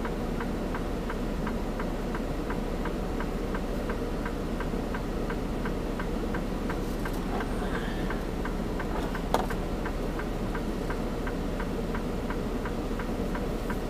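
A semi truck's indicator flasher clicking evenly, about three clicks a second, over the steady idle of the engine heard inside the cab. A single sharper click comes about nine seconds in.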